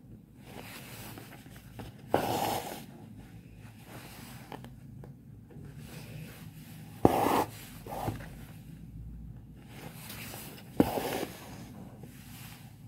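Three short scraping rasps from fingers and thread working the fabric stretched in an embroidery hoop, each starting with a click, about two, seven and eleven seconds in.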